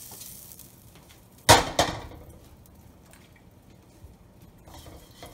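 Two sharp metal clanks about a third of a second apart as the nonstick wok and spatula are handled at the gas stove, after the emptied wok's frying sizzle dies away.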